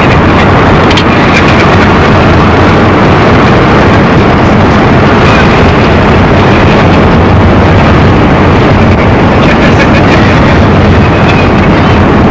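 Loud, steady noise of a moving vehicle, with wind on the microphone, running unchanged throughout.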